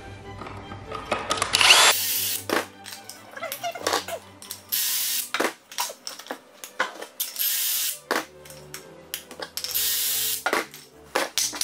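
Cordless drill boring pocket holes through a Kreg pocket-hole jig into a 2x6 wood block. It runs in several short bursts of about a second each, with sharp clicks and knocks of the jig and wood being handled between them.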